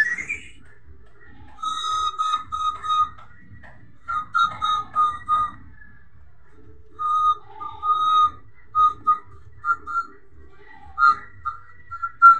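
A tune whistled in short, mostly repeated notes, grouped into several phrases with brief pauses between them.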